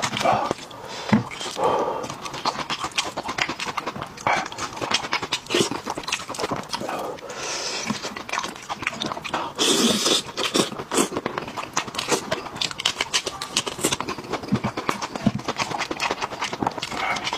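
Close-miked eating sounds: wet chewing and lip-smacking, with tender braised sheep-head meat being torn apart by hand. Dense, rapid clicks run throughout, with a louder stretch about ten seconds in.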